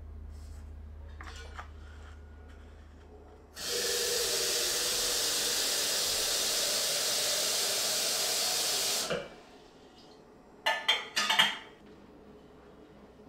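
Tap water running steadily for about five seconds, filling a kettle for tea, then stops. A few sharp clicks and knocks follow.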